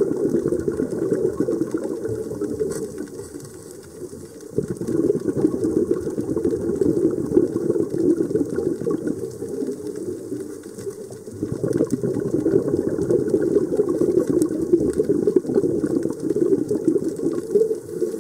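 Scuba regulator exhaust bubbling and burbling underwater as the diver breathes out. It falls away twice, briefly, during inhalations.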